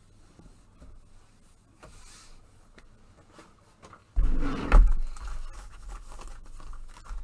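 Faint scrapes and clicks of handling at a desk, then about four seconds in a sudden loud, deep thump and rustle that eases off over the next second or two.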